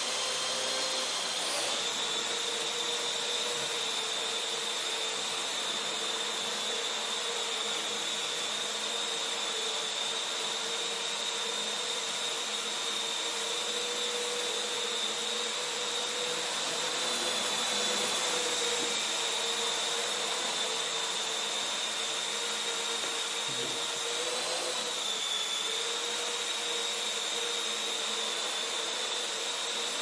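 Parrot AR.Drone quadcopter in flight, its four electric motors and propellers whirring with a steady high whine. The pitch wavers briefly a few times as the drone manoeuvres.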